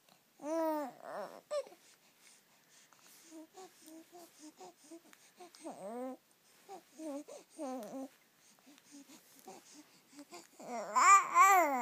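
Two-month-old baby cooing: short pitched vocal sounds that come and go, with a louder run of coos near the end.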